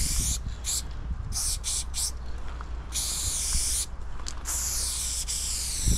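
Aerosol spray paint can hissing in bursts as the writer sprays. There are several short spurts in the first two seconds, then a longer spray about three seconds in, and another long continuous spray from near five seconds on, all over a low steady rumble.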